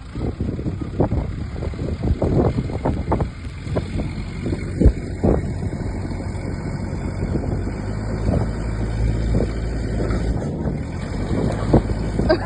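Backhoe engine working under load, with a series of sharp knocks and thuds through the first half as the concrete silo is pulled down. The engine settles into a steadier low drone in the last few seconds.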